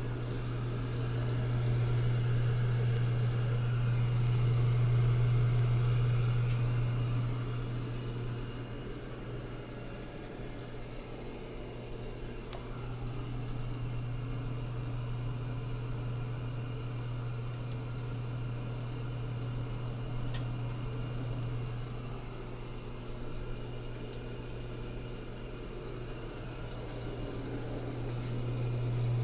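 A drum laundry machine running with a steady low hum that swells and fades every several seconds.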